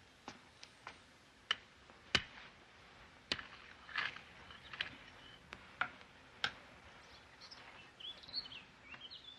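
Faint, sparse bird chirps over a quiet background, with a dozen or so sharp, isolated clicks scattered irregularly through.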